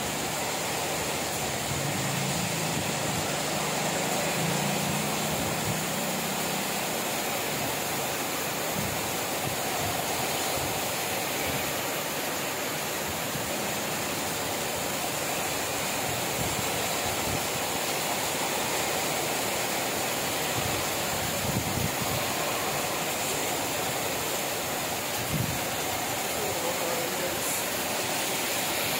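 Heavy rain falling steadily, with water pouring off a roof edge in a continuous stream. A vehicle's engine runs low beneath it in the first several seconds.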